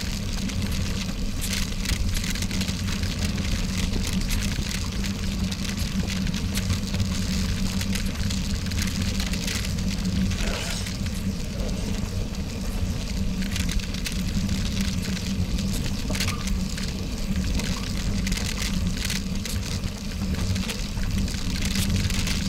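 Wind rushing over a bike-mounted GoPro Session's microphone at about 20 mph, with tyres rolling on a packed gravel road and scattered small crackles and ticks of gravel.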